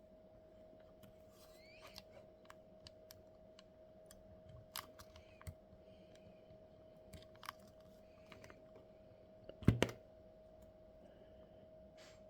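Scattered light clicks and taps of small parts being handled during the mini drift truck build, with a louder double knock near the end, over a faint steady hum.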